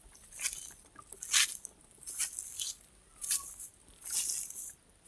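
Footsteps crunching on dry ground vegetation, about six steps at a walking pace.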